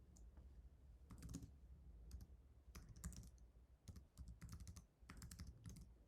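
Computer keyboard keys clicking as someone types a command, in several short runs of keystrokes with brief pauses between them.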